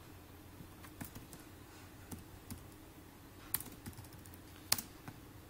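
A computer keyboard being typed on: a few separate, irregularly spaced keystroke clicks, the loudest a little before the end, over a faint steady hum.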